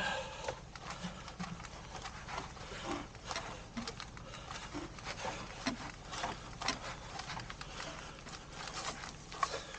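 Footsteps on a dirt forest trail at a steady walking pace, about two steps a second.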